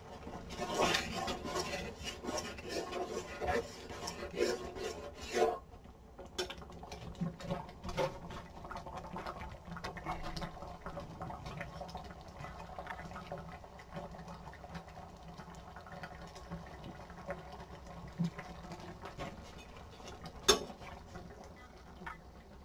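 Kitchen cooking sounds: a utensil scraping and clinking against cookware, busy for the first five seconds or so and then sparser, with one sharp clack near the end.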